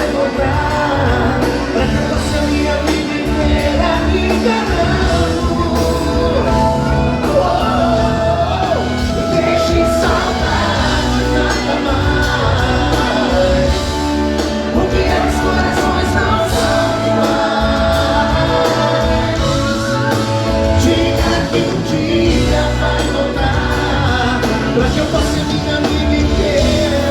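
A live pop-rock band playing, with singing over the band, amplified through a concert sound system.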